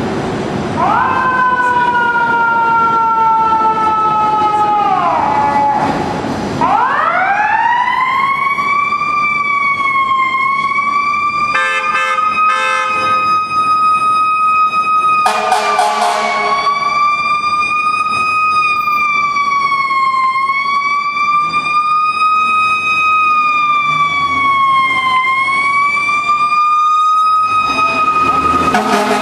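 Seagrave fire engine responding with its Federal Signal mechanical siren. The siren's pitch falls off, spins back up with a rising whine about six seconds in, then wails with slow rises and falls. Two loud air horn blasts break in about twelve and sixteen seconds in.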